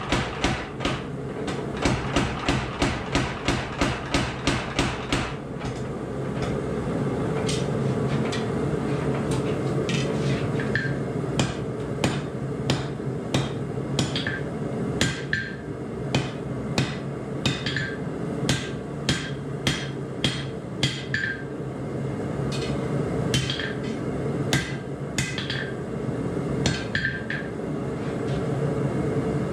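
Mechanical power hammer pounding hot 52100 steel in a rapid, even beat of about four blows a second for the first five seconds. Then a hand hammer strikes the hot blade on the anvil in spaced blows, each with a bright ring. A steady machine hum runs underneath.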